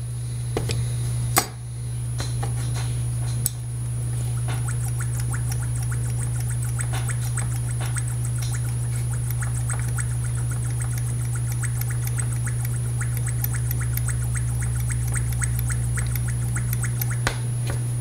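Steady low electrical mains hum with a faint high whine. Over it comes a fast run of small ticks and clicks, with a few sharper clicks near the start and near the end.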